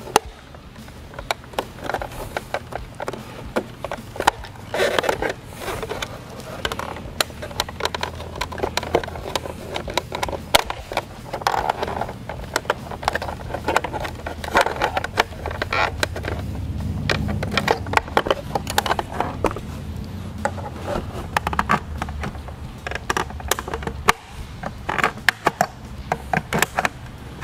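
Irregular plastic clicks, taps and scrapes as a pick works at a GM tow mirror's plastic housing to pry its two halves apart, with a steady low hum underneath that swells around the middle.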